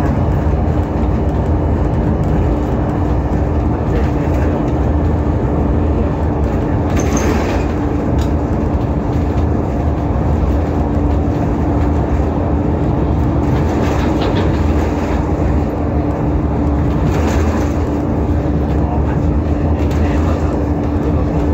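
Alexander Dennis Enviro500 MMC double-decker bus heard from inside the cabin while running: a steady rumble of engine and road noise with a constant droning note, and a few faint rattles.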